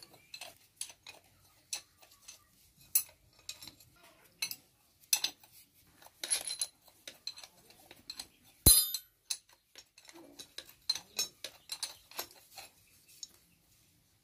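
Irregular metal clinks and clicks of spanners and steel parts being handled on a tractor differential case with its crown wheel, with one louder sharp metallic knock a little past halfway.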